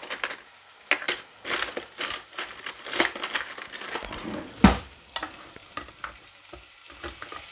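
Sliced potatoes, onion and garlic frying in oil in a pan, sizzling with many small clicks and pops, and one louder knock about halfway through.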